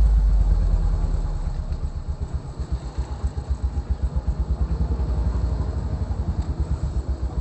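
Sound-system music fades out, leaving a low engine rumble that pulses fast and evenly, like a large engine idling.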